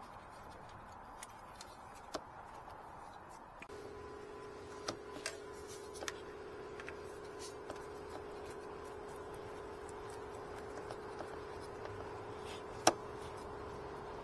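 Scattered light clicks and taps of tools being handled during work on the vehicle. A steady hum comes in about four seconds in, and a single sharp click near the end is the loudest sound.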